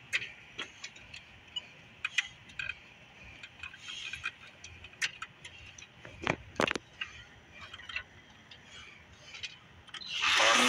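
Cordless electric string trimmer running quietly, its line giving irregular sharp clicks and ticks as it hits grass and the concrete edge. Music with singing comes in near the end.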